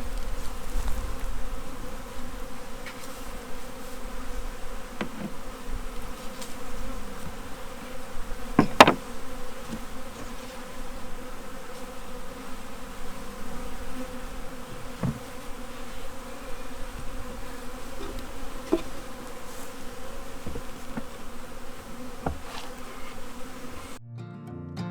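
Swarm of honey bees buzzing steadily around an open hive box, with one sharp knock about nine seconds in and a few lighter clicks. Acoustic guitar music cuts in just before the end.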